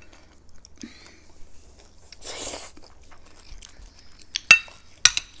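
Eating sounds: soft chewing, with metal cutlery clinking and scraping against plates. The sharpest clinks come about four and a half and five seconds in.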